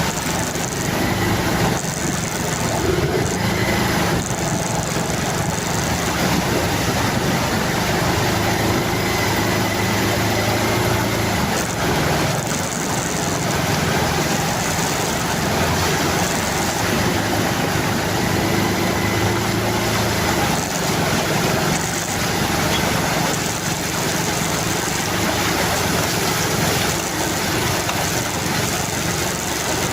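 A vehicle engine running steadily, its pitch shifting now and then, over a constant rush of noise.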